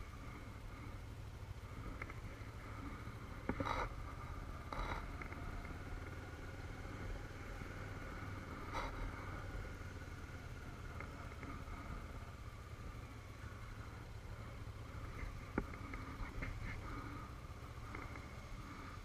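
Motorcycle engine running at low speed with a steady low rumble, heard from the rider's helmet, with a few short sharp clicks along the way.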